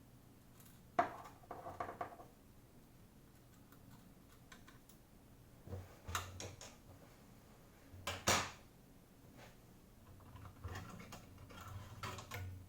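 Scattered clicks and small knocks of hard plastic and metal parts being handled, as in taking apart an oscilloscope's case. The loudest knock comes about eight seconds in.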